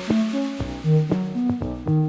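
Background music: a quick run of plucked synthesizer notes in a steady rhythm.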